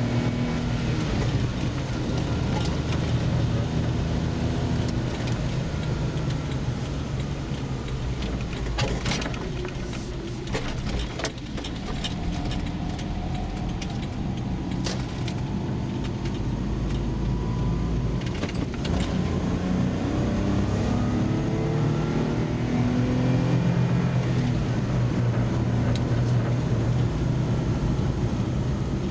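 Car engine and tyre noise heard from inside the cabin while driving, the engine note rising and falling several times as the car speeds up and slows. A few sharp clicks or rattles come near the middle.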